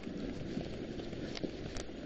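Dog sled running over packed snow: a steady scraping rush of the runners, with the light patter of the dog team's paws and a few faint clicks late on.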